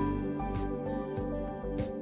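Background music with a steady beat: held notes over a bass line and a light cymbal tick about twice a second.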